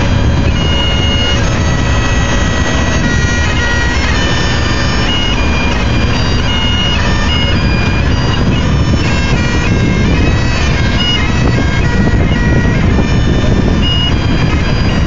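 Bagpipes playing a tune: held notes stepping up and down over the steady drone, with a loud, steady low rumble underneath.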